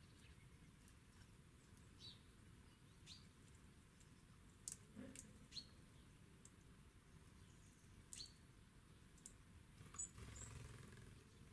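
Faint, short, sharp chirps and clicks of small birds at a feeder, about half a dozen spaced a second or more apart, with a soft rustle near the end.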